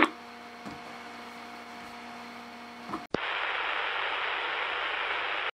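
Low steady line hum with a couple of faint clicks, then about three seconds in a sharp click and a louder, even static hiss that cuts off abruptly near the end, as a phone-in call drops off the line.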